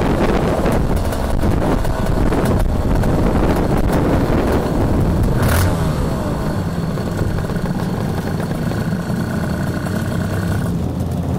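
An 80cc two-stroke shifter kart engine heard from onboard, running as the kart slows and rolls in behind other karts. A short sharp sound comes about halfway through, and a steady whine runs through much of the second half.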